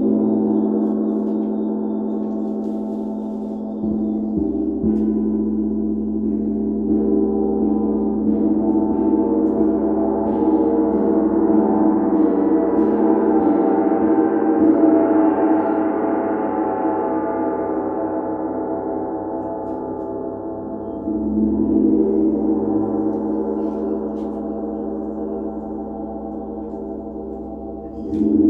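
Gong played continuously with a mallet, its many overlapping tones ringing on and swelling to a peak midway before fading. Fresh strikes lift it again about four seconds in, about twenty-one seconds in, and at the very end.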